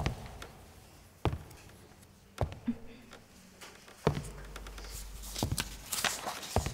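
Slow footsteps of hard shoes on a wooden floor, single knocks spaced a second or so apart. Paper rustles near the end as a large sheet is unfolded.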